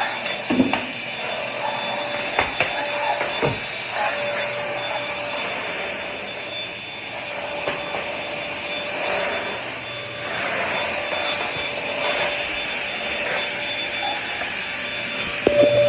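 Vacuum cleaner running steadily, its motor whine rising and falling a little in level as it is worked over the floor, with a few knocks in the first few seconds.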